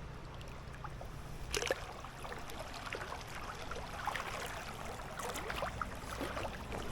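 River water running steadily, with a few small ticks and one short sharp sound about a second and a half in.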